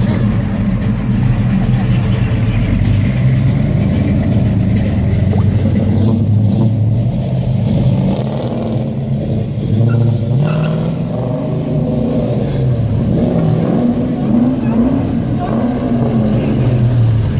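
Car engines running, their pitch rising and falling as they are revved and driven slowly.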